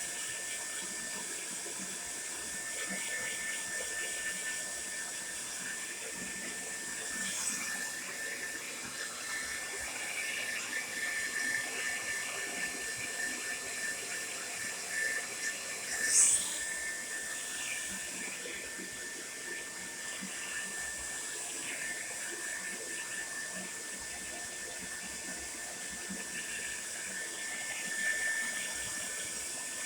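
TRESemmé Salon Smooth Professional hair dryer running, a steady blowing hiss with a thin, high motor whine. A brief, sharp, louder sound comes about sixteen seconds in.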